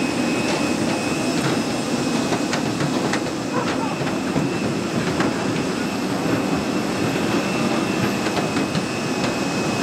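Airport apron noise: a steady engine drone with a faint high whine, with occasional knocks of footsteps and luggage on metal boarding stairs.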